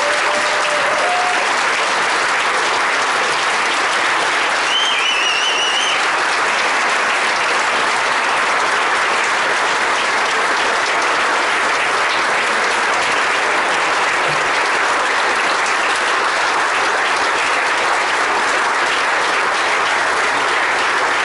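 Large audience applauding, dense and steady throughout, with a brief high-pitched cheer or whistle rising above the clapping about five seconds in.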